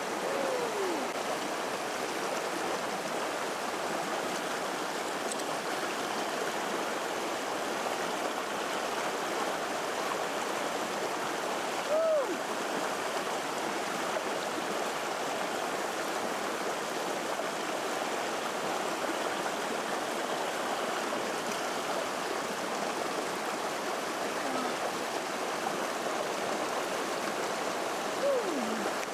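Steady rush of running water, with three short sliding pitched sounds: one just at the start, one about halfway through and one near the end.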